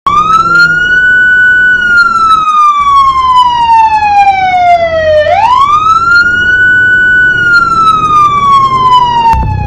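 Siren sound effect wailing: the tone rises quickly, holds for a moment, then falls slowly, and about five seconds in it sweeps up again and repeats the cycle.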